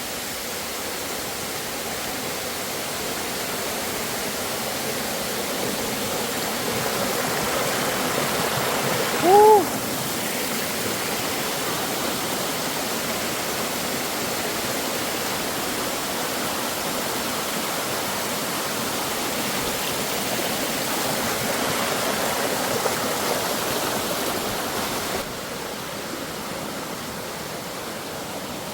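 Waterfall and stream water rushing steadily, the flow full from recent rain. About nine and a half seconds in, a short pitched call rises and falls briefly over the water, and the rush drops quieter near the end.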